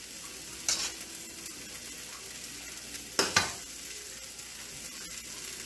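Steady sizzling hiss of stir fry frying in a pan, with short clinks of a utensil against a ceramic plate just before a second in and twice at about three seconds.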